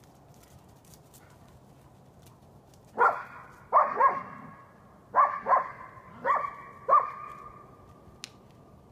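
Dog barking at an elk: about seven sharp barks in quick pairs, starting about three seconds in and ending about a second before the end.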